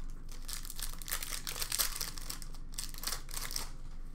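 Hockey card pack wrapper being torn open and crinkled, a run of crackly rustles from about half a second in until near the end.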